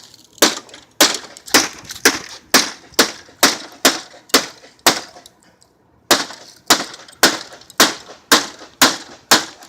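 Rapid, evenly spaced blows striking an air conditioner being smashed apart, about two a second: a run of about ten, a short pause, then another run of about eight.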